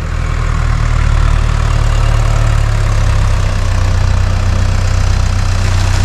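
Farm tractor engine running steadily as its front loader sets pine logs onto a flatbed trailer.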